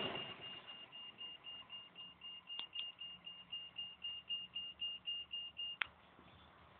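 A freight train's rumble fades out over the first second. A railroad crossing bell goes on ringing in quick strokes, about four a second, and stops with a click almost six seconds in.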